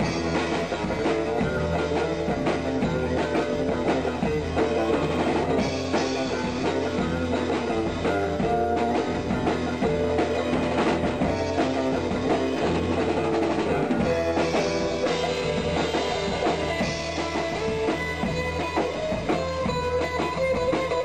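Live band playing an instrumental passage: drum kit keeping a steady beat under guitars, with no singing.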